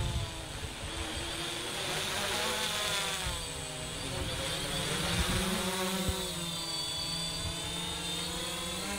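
DJI Phantom quadcopter's propellers whining overhead, the pitch of the buzz drifting up and down as the drone manoeuvres and the motors change speed.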